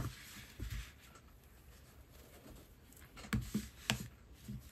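Hands smoothing a crocheted yarn piece flat on a wooden tabletop: a faint brushing at first, then a few light taps and knocks between three and four and a half seconds in.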